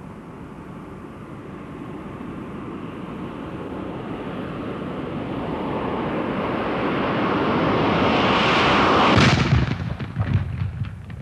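A rushing noise swells steadily for about nine seconds, building to a loud peak, then breaks into choppy, crackling noise as the picture turns to TV static.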